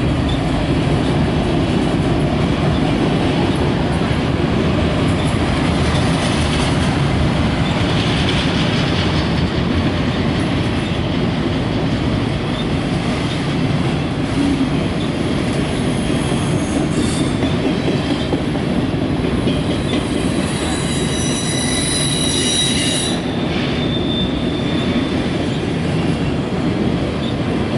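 Loaded autorack cars of a CSX freight train rolling past in a steady rumble of wheels on rail. About twenty seconds in, a high wheel squeal sounds for a few seconds.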